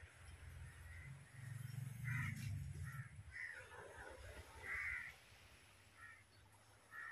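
Crows cawing repeatedly, short harsh calls about once a second, over a low rumble in the first half.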